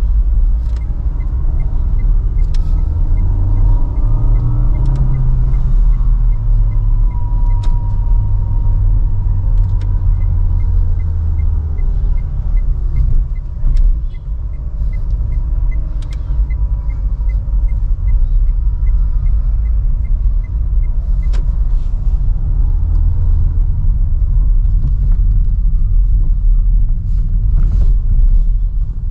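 Inside the cabin of a 2012 Renault Sandero Stepway in slow stop-and-go traffic: a steady low rumble of engine and road, with the engine note rising and falling as the car pulls away and slows. For two stretches a light, even ticking runs at about three a second.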